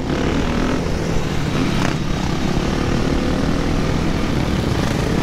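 Dirt bike engines running under way in a group ride, the nearest bike's engine giving a steady drone with the other bikes' engines mixed in.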